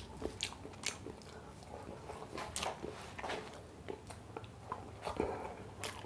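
A man chewing and lip-smacking a mouthful of rice and sauce eaten by hand: irregular wet smacks and clicks, a few a second, over a faint steady low hum.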